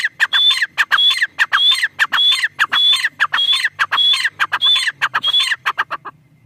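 Teetar (francolin) calling: a fast, even string of loud, high, dropping notes, about two or three a second, that stops abruptly near the end.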